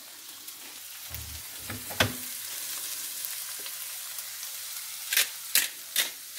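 Diced onion and carrot frying in a pan with a steady sizzle, with a soft knock about a second in. From about five seconds in, a pepper mill is twisted over the pan, giving a run of sharp crunching clicks.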